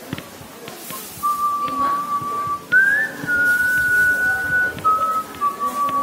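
A whistled tune of a few long held notes, starting about a second in, jumping up in pitch about halfway through, then stepping back down near the end.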